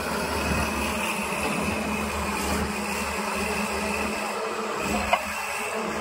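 Tata Hitachi 200 excavator's diesel engine running steadily while the boom and bucket are worked, during a test run after a swing-motor repair. One short sharp click about five seconds in.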